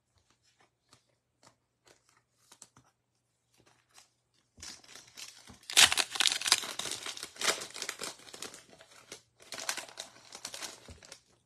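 Foil wrapper of a 2022 Panini Illusions football card pack crinkling and tearing as it is ripped open by hand, starting about four and a half seconds in, with a short pause before a second stretch of crinkling near the end. Before that, only faint light ticks of the pack being handled.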